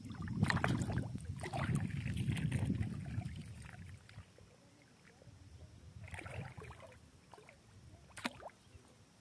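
A hooked rohu thrashing and splashing at the water's surface on the line, loudest for the first three seconds, then quieter, with smaller splashes later and one sharp splash near the end.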